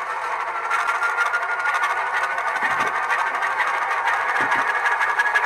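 Diesel locomotive engine sound from an ESU LokSound Select Micro decoder, played through the Alco S1 model's small speaker: a thin, buzzing engine sound with little bass that swells up to about a second in, then runs steadily with a faint tone slowly rising in pitch.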